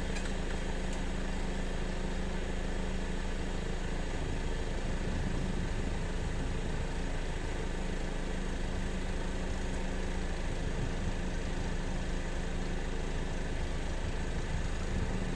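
A motor running steadily, a low even hum that holds one pitch throughout.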